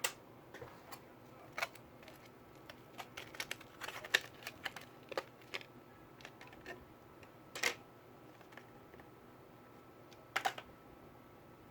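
Typing on a laptop keyboard: irregular light key clicks, bunched together in the middle, with a few louder single taps.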